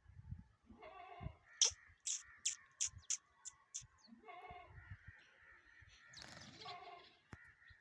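Birds calling: harsh, cawing calls three times, with a quick run of about seven sharp, high chirps in between.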